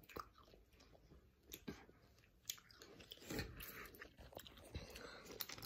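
Faint chewing and crunching of sweets close to the microphone: small scattered crunches and mouth noises, a little louder about three seconds in and again near the end.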